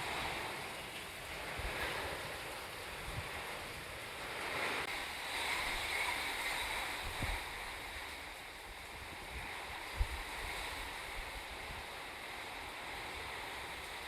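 Steady heavy rainfall, a dense hiss that swells and eases slowly, with a few brief low thumps, the sharpest about ten seconds in.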